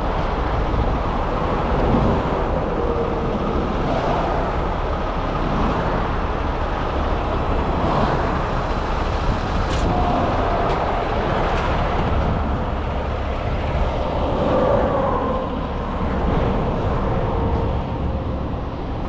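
Steady heavy motor-vehicle noise, an engine running along with road traffic, with a few sharp clicks partway through.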